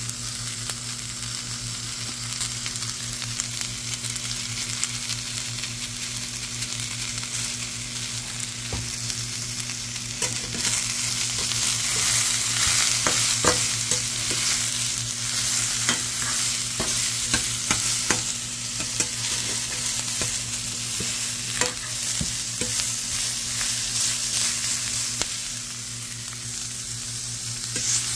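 Mixed vegetables sizzling in a stainless steel frying pan, with a slotted spatula stirring them and clicking and scraping against the pan. The sizzle grows louder about ten seconds in.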